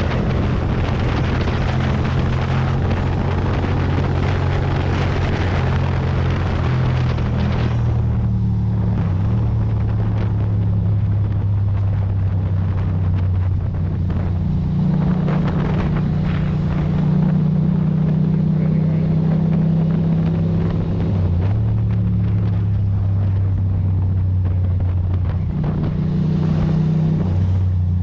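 Ducati Monster's L-twin engine running at road speed, its note stepping up and down in pitch several times as the throttle and gears change, with wind rushing over the microphone that is heavier for the first eight seconds or so.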